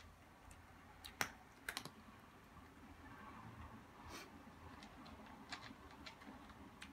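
Cat eating dry kibble from a plastic bowl: faint, irregular crunches and clicks.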